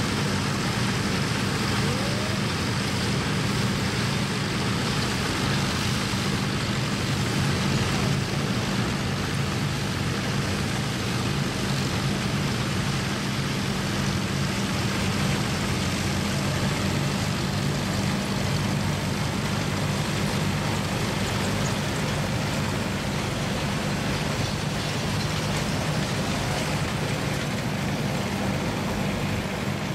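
Vintage Allis-Chalmers self-propelled combine running steadily while harvesting: a constant engine hum under the rush of its threshing machinery.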